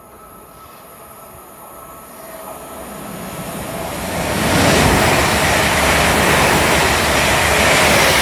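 Two coupled Class 350 Desiro electric multiple units approaching and running past close by. The sound grows from a faint hum into a loud rush of wheels on rail and air about halfway through, then stays loud.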